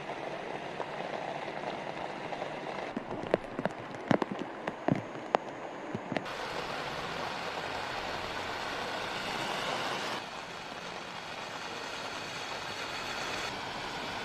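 Heavy rain falling, a steady hiss, with a few sharp close taps of drops between about three and five seconds in. About six seconds in the hiss turns brighter and fuller as rain pours on a wet road with car tyres passing, and it shifts abruptly in tone a couple more times.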